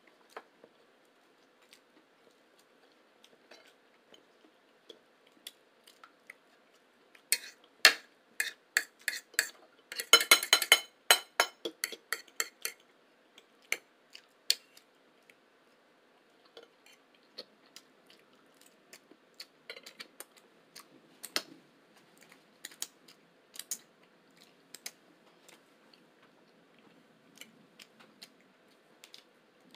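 Silverware clinking and clattering against plates while eating, with a dense, loud run of rapid clinks from about a quarter of the way in to about two-fifths, then scattered softer clicks.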